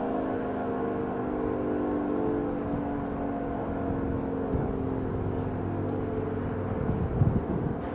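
Outdoor warning sirens sounding steady alert tones, several pitches heard at once; some of the tones fade out partway through. A brief low thump comes near the end.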